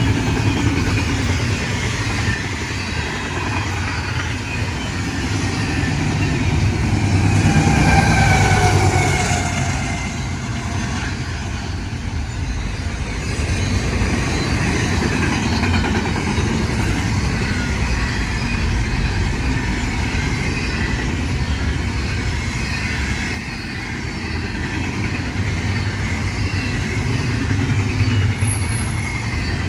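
Freight train going by: a steady rumble of wheels and diesel locomotives. It is loudest about eight seconds in, where a pitched sound drops in tone as it passes.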